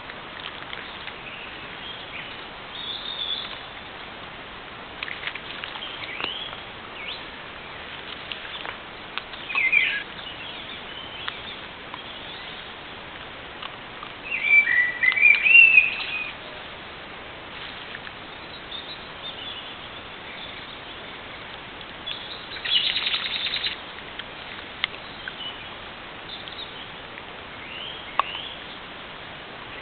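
Wild birds singing: scattered chirps and short warbling phrases, the loudest about halfway through and another a little later, over a steady background hiss.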